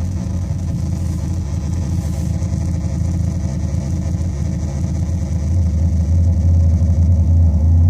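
Metsään Dirty Drone [anarchy] synth, three interacting triangle-wave oscillators, putting out a low, rough, buzzing drone with a gritty, unsteady texture. It swells louder about five seconds in.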